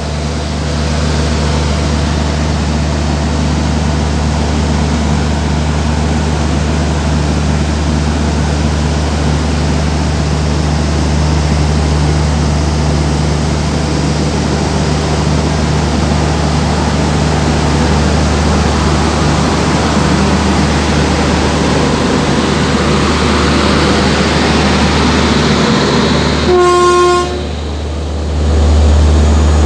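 Electric-hauled express train with LHB coaches departing and rolling past close by: a steady rumble of wheels and running gear with an electric hum. Near the end comes one short train horn toot, and then the rumble grows louder.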